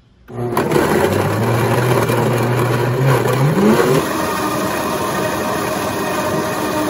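Jennifer Room countertop blender starting up and blending frozen blueberries with yogurt and milk: a loud motor whir with rough chopping noise, its low hum rising sharply in pitch about three and a half seconds in as the motor speeds up, then running steady.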